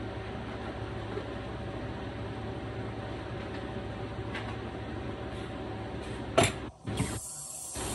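Steady hiss and low hum of chicken fajitas simmering in a skillet on the stove. About six and a half seconds in comes one sharp clatter of a pan being handled, after which the sound briefly drops out and returns as a brighter hiss.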